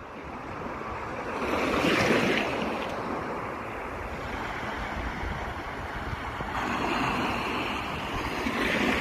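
Sea waves washing onto the shore, swelling about two seconds in and again near the end, with wind buffeting the microphone.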